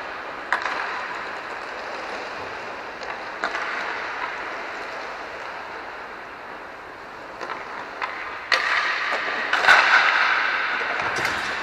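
Inline hockey play: skate wheels rolling on the rink floor, with sharp clacks of sticks on the puck and the puck against the boards, several times. It grows busier and louder in the last few seconds.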